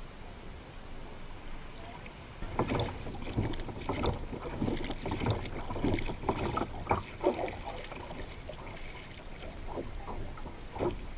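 Water splashing and knocking in irregular strokes for about five seconds, starting a couple of seconds in and thinning out after, over a steady background rush.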